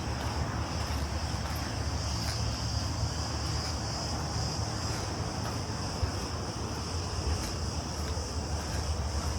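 Cicadas singing in a steady high-pitched chorus, with a steady low rumble underneath.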